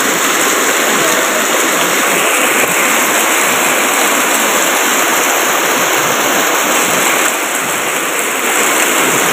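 Heavy tropical downpour: a loud, steady hiss of rain falling on concrete and on standing water.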